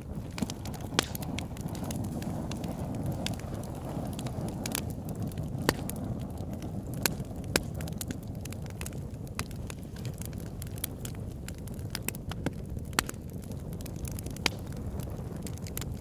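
Campfire burning: a steady low rush of flames with frequent sharp crackles and pops scattered irregularly through it, a few of them louder than the rest.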